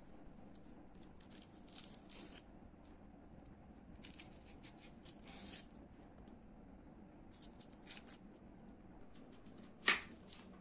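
Small knife scraping and paring the dry papery skin off a white onion: scattered soft scratches and crackles. About ten seconds in comes one sharper knock as the knife cuts into an onion on a plastic cutting board.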